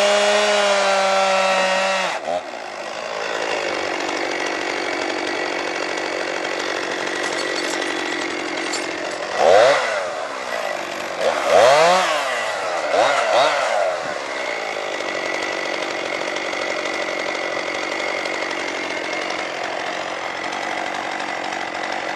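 Chainsaw running at high revs, cut back about two seconds in. A steady engine sound carries on underneath, and around the middle the chainsaw's throttle is blipped several times in quick rising and falling revs.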